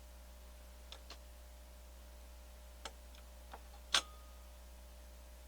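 A few sharp mechanical clicks as the AKAI AP-206 turntable's switches and controls are worked, the loudest about four seconds in, over a faint steady low hum.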